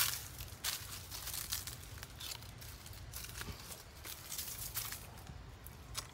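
Faint rustling and crackling of dry leaves and stalks, with scattered light clicks at irregular moments.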